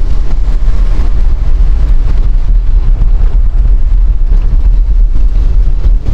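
Loud, steady low rumble of a car driving along, with wind buffeting the microphone.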